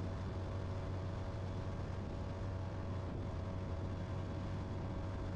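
Bass boat's outboard motor running steadily at speed: a constant low drone with an even hiss over it.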